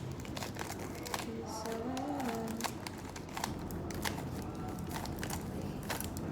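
Plastic Rubik's cube being turned by hand: a run of irregular quick clicks and clacks as the layers are twisted.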